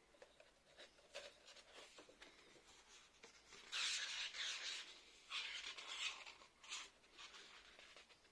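Pages of a large hardcover book being turned by hand: faint paper rubs and finger taps, then a louder swish of a thick page sweeping over about four seconds in, followed by two or three shorter rustles as the page settles.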